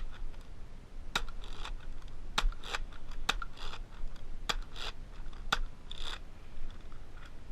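Boomco plastic toy dart pistol being pumped and fired over and over: a sharp plastic snap about once a second, each followed by a short rattling slide as the grip is worked and the rotating cylinder turns. The pump action is slow, so it can't be fired quickly.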